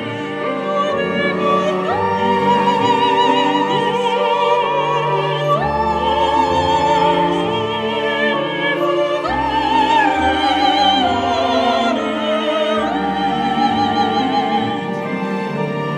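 Orchestral film score with a high operatic voice singing long held notes with wide vibrato, sliding up into each new note, over low sustained chords that shift every second or two.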